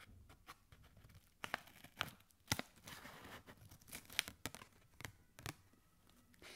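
Scissors cutting open a kraft paper envelope, then paper crinkling and rustling as the package is opened and handled, with many sharp crackles and snaps.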